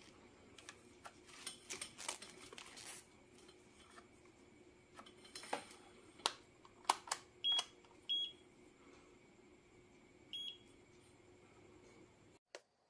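Clicks and knocks from handling a Kyoritsu KEW 2062BT clamp power meter, its test leads and its rotary function dial, with three short high beeps from the meter in the second half, two close together and one a couple of seconds later.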